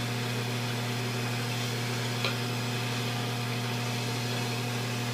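Steady low hum with a hiss, like a running fan or appliance, holding an even level, with one faint tick about two seconds in.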